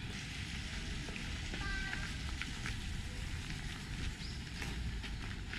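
Outdoor walking ambience: footsteps with scattered crunching clicks over a steady low rumble, and faint distant voices.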